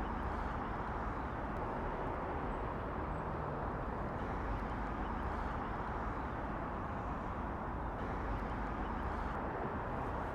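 Steady outdoor background rumble of distant road traffic, even and unbroken.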